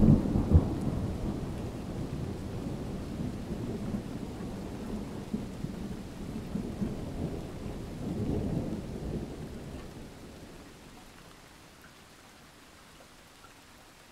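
A sudden thunderclap at the start rolls on into a long, low rumble that swells again about eight seconds in and dies away about ten seconds in. Steady rain falls throughout and is left on its own near the end.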